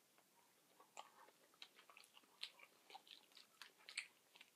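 A person chewing a mouthful of buffalo chicken sub close to the microphone: faint, irregular wet clicks and smacks of the mouth.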